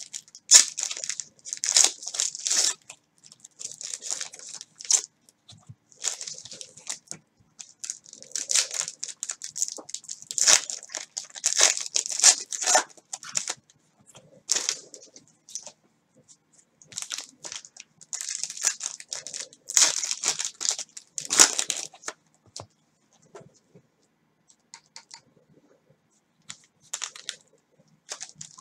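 Plastic wrappers of Panini Certified basketball card packs being torn open and crumpled by hand: irregular bursts of tearing and crinkling. The sound grows sparser and fainter for a few seconds near the end.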